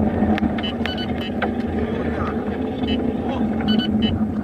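Driving noise from inside a car at highway speed: a steady engine and road drone, with scattered sharp clicks and a few short high beeps.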